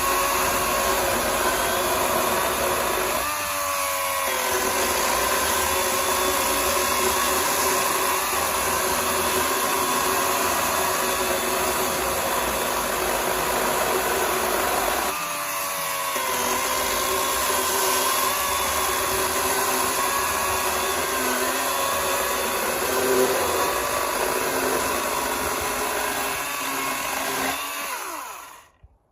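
Greenworks 80V 18-inch brushless cordless chainsaw running steadily and cutting wood. Its motor whine dips in pitch twice as the chain loads up, and it winds down near the end.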